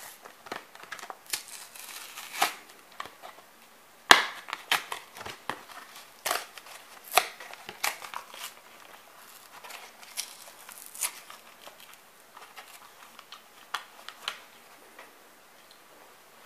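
Plastic blister packaging and its card backing crinkling, crackling and tearing as a diecast toy car is unboxed by hand, with irregular clicks and rustles throughout.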